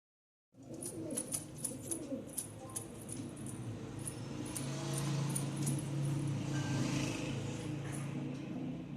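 Domestic pigeons at the loft, with a run of sharp, irregular clicks and taps and a low rumble that swells in the second half.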